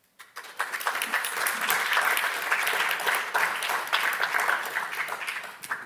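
Audience applauding: many hands clapping that start shortly after the beginning, build quickly, and fade out near the end.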